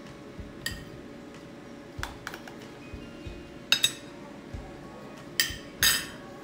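A metal spoon clinking against a ceramic plate and a plastic food container as pineapple chunks are scooped out onto the plate: a string of sharp clinks, the loudest ones about four and six seconds in.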